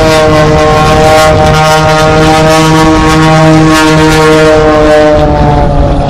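Single-engine aerobatic airplane's 400-horsepower piston engine and propeller running at high power, a steady loud drone. Its pitch dips slightly and the sound dulls near the end as the plane passes.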